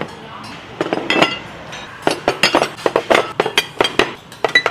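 White ceramic side-dish plates being set down one after another on a wooden table: a quick run of clinks and knocks that starts about a second in and comes thickest in the second half.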